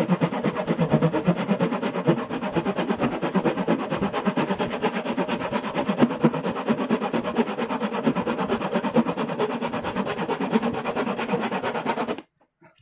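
A narrow-bladed hand saw cutting a curved line through a wooden plank, in quick, even back-and-forth strokes. The sawing stops suddenly near the end.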